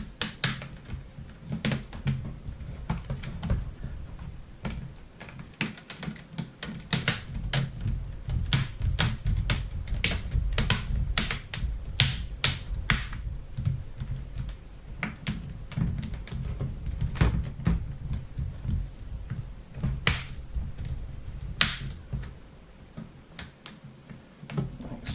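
Laptop screen bezel being pressed on by hand, its plastic clips snapping into place with a series of sharp clicks, a quick run of them in the middle and two more later, over the low rumble of handling.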